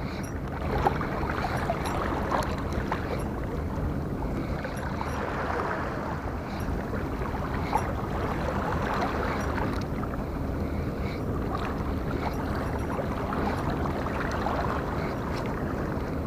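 Steady wind and water noise, with a few faint clicks.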